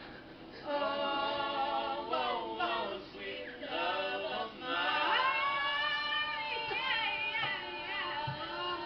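A group of girls singing together, a rock song for their music video, moving into long held notes with a wavering pitch about halfway through.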